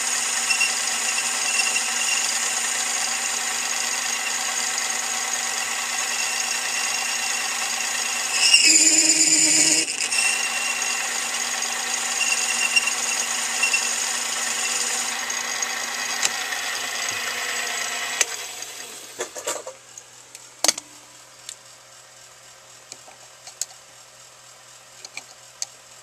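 Small benchtop metal lathe running with a steady whine while a boring tool takes a light finishing pass inside the bore of an aluminum wheel blank. The sound is briefly louder about a third of the way in. Past the halfway point the lathe is switched off and winds down, followed by a sharp click and a few small metallic ticks.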